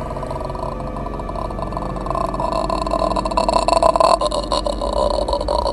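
Horror-film ghost sound effect: a steady low drone under a throaty, rattling sound that grows louder about two seconds in and breaks into rapid pulses, the rattle of the ghost.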